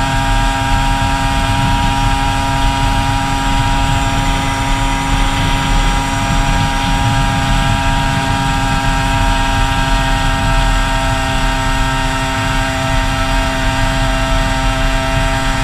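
Kawasaki KB100's two-stroke single-cylinder engine running at a steady cruising speed without changing pitch, with wind noise rushing over the microphone.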